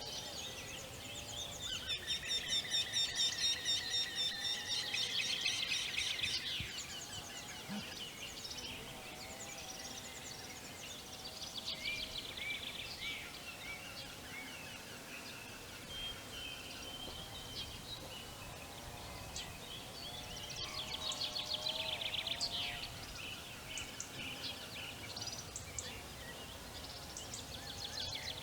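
Several songbirds singing and chirping together over steady background noise, in louder spells a couple of seconds in and again about two-thirds through, with lower wavering calls underneath.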